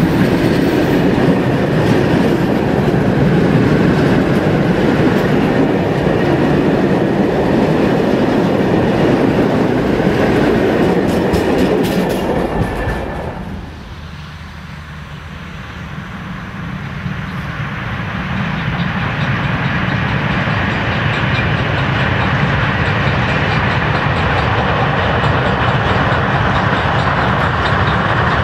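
Freight train rolling past: a steady rumble with the clickety-clack of wagon wheels over the rail joints. The sound drops away sharply about halfway through, then builds back up to a steady rolling noise.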